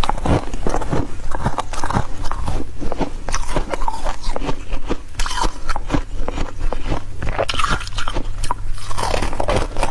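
Close-miked biting and chewing of crunchy freezer frost: dense, irregular crunches and crackles of the ice breaking between the teeth, over a low steady hum.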